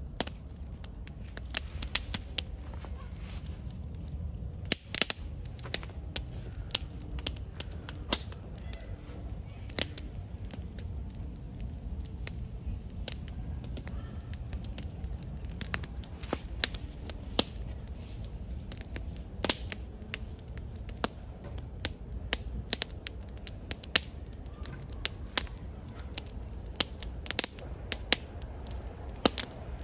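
Wood campfire crackling, with sharp irregular pops over a low steady rumble.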